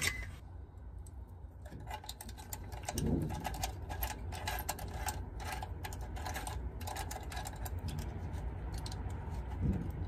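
Quick, irregular clicking and ticking of a small fitting handled and turned by fingers, as the electrical whip's connector is fitted onto a new well-pump pressure switch.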